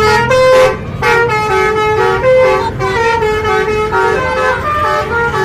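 Bus's Basuri telolet horn playing a quick tune of short stepped notes, about three a second, with a brief break a little under a second in.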